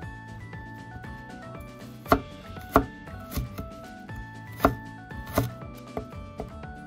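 Kitchen knife chopping on a wooden cutting board: several sharp knocks, the loudest in two pairs about two and five seconds in, over background music.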